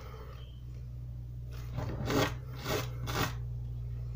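A piece of circuit board (fiber board) rubbed by hand across a flat sandpaper sanding disc to smooth the edge of a fishing-lure bill. The first half is quieter, then three short sanding strokes come about two, two and a half, and three seconds in.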